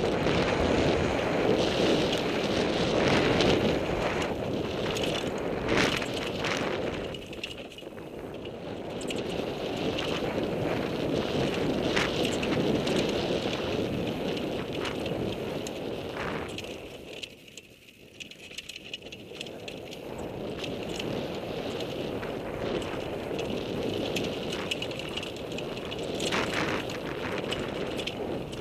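Mountain bike ridden fast down a rough dirt singletrack: a steady rush of tyre and wind noise with frequent rattles and knocks as the bike hits bumps. The noise drops away briefly just past the middle.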